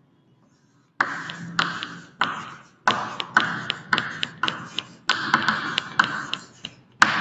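Chalk writing on a chalkboard, starting about a second in: a quick run of sharp taps, each followed by a short scratching stroke, as letters are written out.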